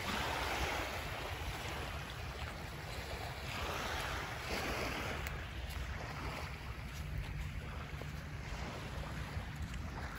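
Small waves washing on a sandy lake shore, swelling louder twice, with wind rumbling on the microphone underneath.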